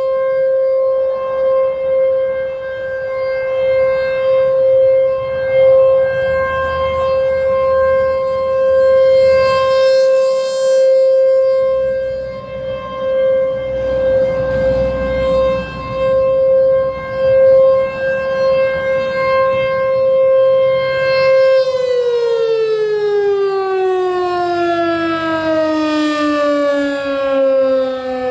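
American Signal T128 rotating mechanical tornado siren sounding a steady single tone that swells and fades in loudness. About 22 seconds in, its pitch begins to fall steadily as the siren winds down.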